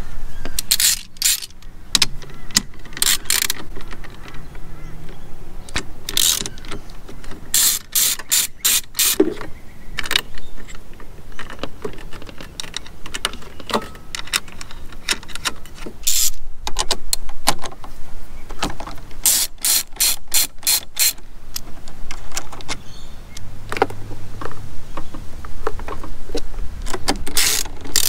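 Hand socket ratchet clicking in short bursts of rapid clicks with pauses between, as the car battery's terminal nuts are worked loose and done up.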